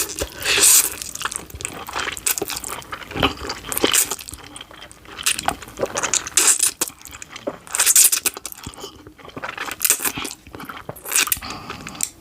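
Close-miked eating of a big bite of saucy Buldak spicy ramen noodles: wet chewing and slurping mouth sounds in irregular bursts.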